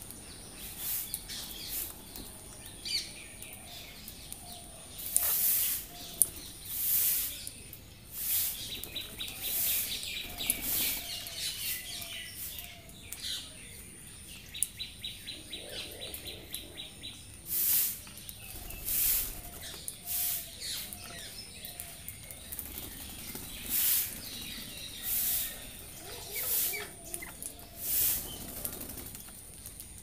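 Rose-ringed parakeets feeding and flying about a feeder: short, sharp calls and wing flaps every second or two, with two stretches of rapid ticking chatter.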